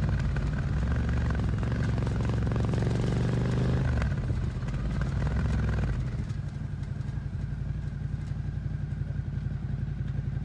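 Suzuki SV650 V-twin engine through an aftermarket Dominator GP exhaust, heard onboard while riding. The revs shift and fall at about four seconds in, then settle to a lower, steadier running note from about six seconds.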